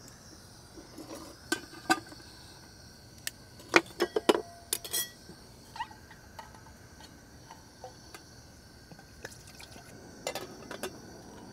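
A metal cook pot and lid clinking and knocking as they are set on a small gas-canister backpacking stove, with a cluster of sharp metallic knocks and short ringing in the middle, over a faint steady hiss from the lit burner. Near the end, liquid is poured from a bottle into a bowl.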